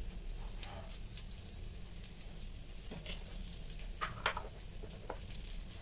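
Urad dal paste and spices in a hot oiled nonstick pan, the oil crackling faintly: a few scattered small pops over a low steady hum.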